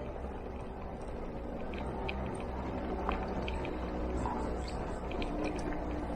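Scooter engine running steadily while riding, a low even hum under road and wind noise, with scattered light clicks and rattles.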